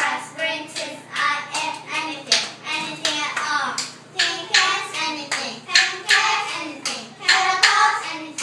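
A group of young children singing a song together in chorus, with hand claps.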